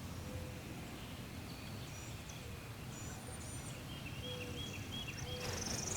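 Small songbirds chirping faintly in short scattered phrases over a steady low outdoor rumble, in quiet woodland ambience.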